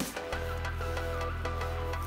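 Background music: the drumbeat drops out just after the start, leaving a held low bass under a repeating melody.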